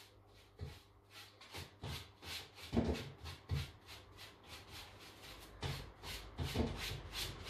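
Paintbrush bristles brushing black furniture glaze onto the painted wood of a cabinet side, in quick back-and-forth strokes, a swish about three times a second.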